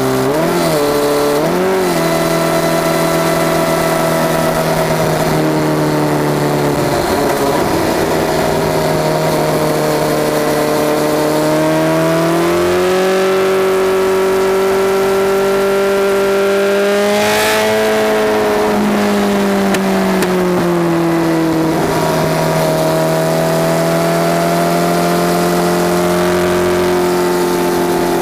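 Honda CBR1100XX Super Blackbird's inline-four running loud through a Takkoni exhaust with the mufflers straight-piped (dB killers out), picked up by a microphone under the seat while riding. The engine note wobbles twice about a second in, holds steady, climbs slowly as the bike accelerates about halfway through, peaks, falls back as the throttle is eased, then settles to a steady cruise.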